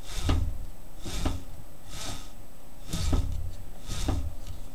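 Washing-machine motor converted into a magnet generator, being spun by hand in short strokes about once a second. Each stroke is a brief rubbing swish with a low knock.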